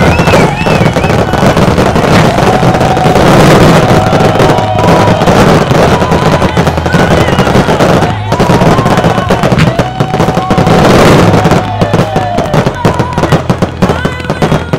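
Fireworks shells bursting and crackling in a rapid, dense barrage over a pop song with a singing voice.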